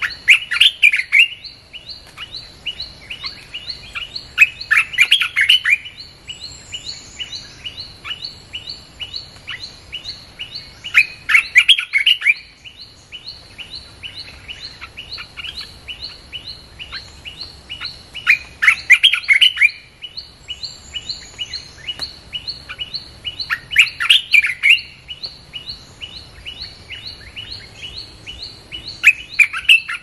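Bulbul song in short loud phrases of rapid chirps, repeated about every six seconds, played as a lure call to draw wild bulbuls to a trap cage. Under it runs a steady, fast, even chirping, about three a second.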